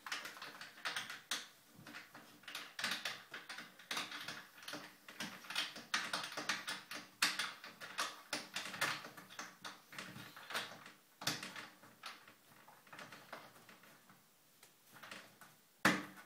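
Irregular plastic clicks and scrapes as a toilet seat's fixing is tightened by hand from underneath, with one sharper click near the end.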